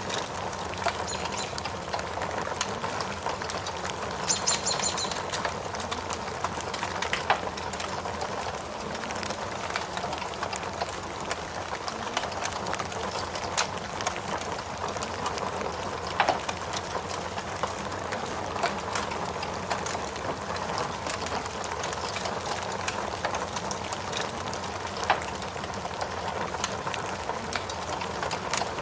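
Steady rain hiss mixed with a crackling wood fire, with sharp pops every few seconds and a brief high chirp about four and a half seconds in.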